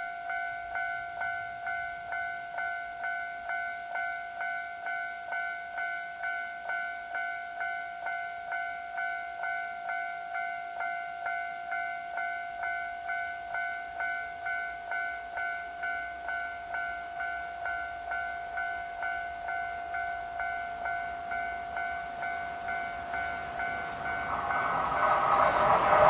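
Japanese level-crossing warning bell ringing with evenly repeated electronic dings. In the last two seconds an approaching JR Freight EH500 'Kintaro' electric locomotive with its container train swells up loudly and drowns the bell.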